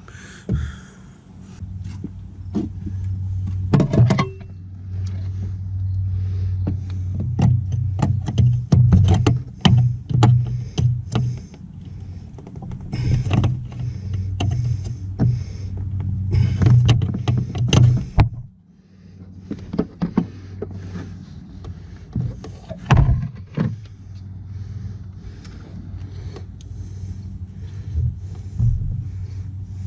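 Repeated sharp plastic clicks and knocks as a pry tool and screwdriver work at the retaining clips of the bow-tie emblem from behind the grille, over a steady low hum. The hum drops away for a moment about two-thirds of the way in, then comes back quieter.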